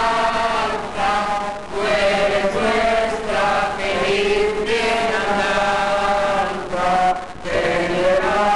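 A crowd singing a religious song together in unison, holding long notes with short pauses for breath.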